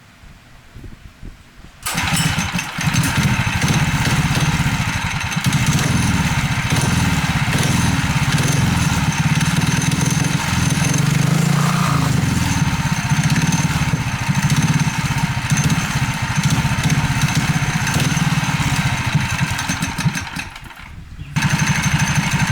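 Predator 212 single-cylinder four-stroke engine, fitted with a homemade exhaust and muffler, catches about two seconds in and runs loud and steady. Near the end it drops away for about a second, then is back at full level.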